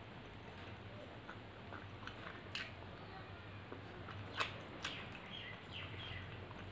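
Close-miked eating sounds: fingers mixing rice and curry, then chewing with wet mouth clicks and smacks, the sharpest click about four and a half seconds in. A few faint short high chirps near the end.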